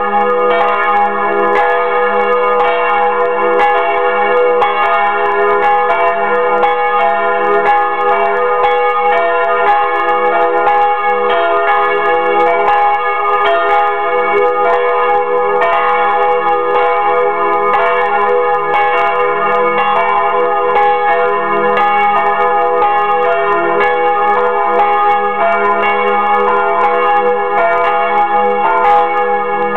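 Two swinging church bells, the large Fremy bell and the small Bachert bell, ringing together at close range in the belfry, ringing in Sunday. Their strokes overlap into one continuous, steady peal.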